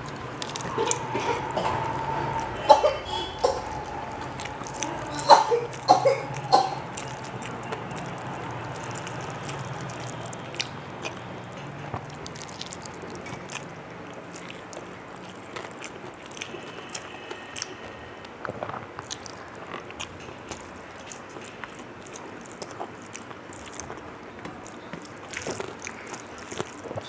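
A person eating rice and curry: chewing and small wet clicks and smacks throughout. A few louder sharp sounds come in the first seven seconds, the loudest about five seconds in, then the eating continues more quietly.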